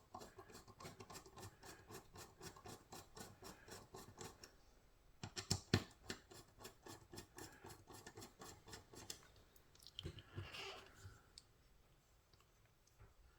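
A bit driver working the small screws of a folding knife during reassembly, giving a faint, quick run of evenly spaced clicks, about four or five a second. There are a few louder knocks around the middle and a short scrape near the end.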